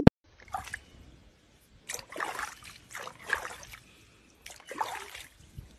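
Water sloshing and splashing in about four short bursts as a jaguar swims through a small pool.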